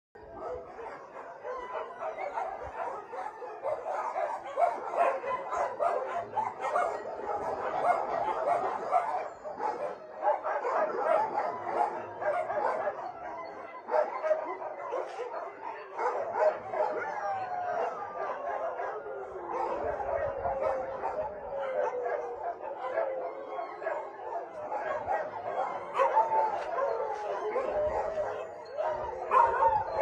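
Many shelter dogs barking and yipping at once in a dense, unbroken chorus, with drawn-out howls sliding in pitch mixed in.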